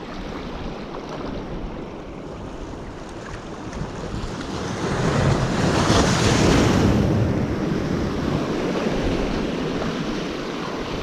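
Sea surf washing in, with wind buffeting the microphone. The rush swells to its loudest about six seconds in and then eases off.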